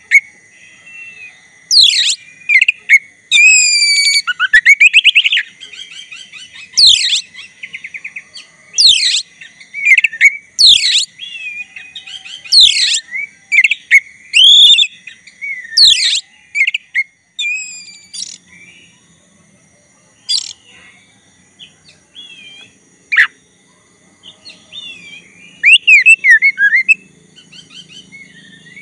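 Oriental magpie-robin of the black-breasted form singing in full song: loud, sharp, sweeping whistles repeated every second or two, mixed with varied warbled phrases. The song goes quieter and softer partway through, then turns loud again near the end.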